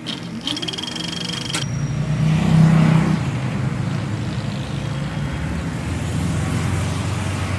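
City traffic sound of a car driving along a street, played back over loudspeakers in a hall. A rising sound comes in the first second and a half; the hum is loudest about three seconds in and then runs steadily.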